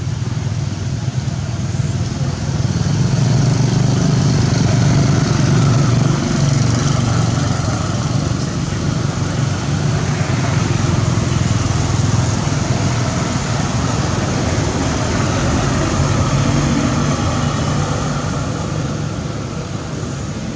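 A motor engine running steadily, a low hum with hiss above it, growing louder a couple of seconds in and easing off near the end.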